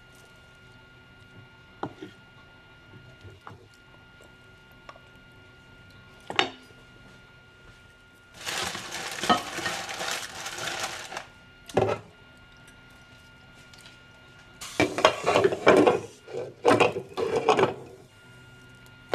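Kitchen clatter of pots and dishes: a few scattered knocks, a rustling, hissing stretch of about three seconds in the middle, then a run of clinks and clatters near the end as a glass lid is handled and set onto a saucepan.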